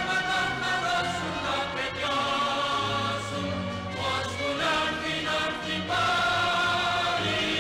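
A song sung in Greek: voices holding long notes over instrumental backing with a steady bass line.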